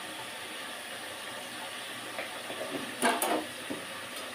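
Steady low hiss of fish cooking in oil in an iron kadhai on a gas stove, with a brief louder sound about three seconds in.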